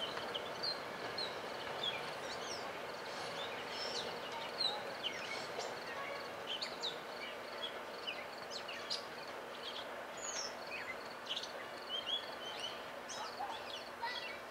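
Songbirds chirping and calling, with many short, high chirps and whistles scattered throughout, over a steady background noise.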